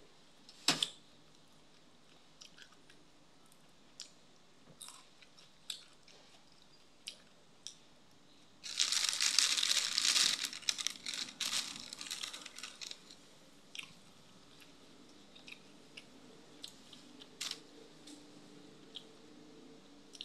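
A person eating close to the microphone: scattered small mouth clicks and smacks, then a dense burst of crunching about nine seconds in that lasts around three seconds and tails off into lighter chewing.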